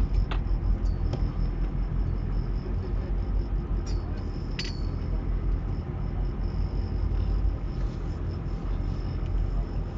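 Steady low rumble of a fishing boat's engine running, with a few light clicks about four and five seconds in.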